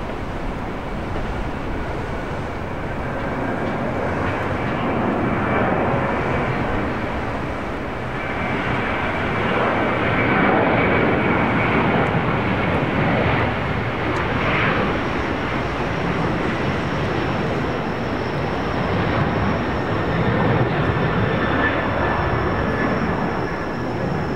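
Jet airliner's engines passing: a loud, steady rush of noise with thin whining tones above it, swelling a little around the middle.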